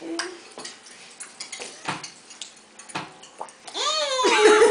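A spoon clinking a few times against a ceramic bowl at a dinner table. Near the end a high voice calls out, its pitch sliding up and down.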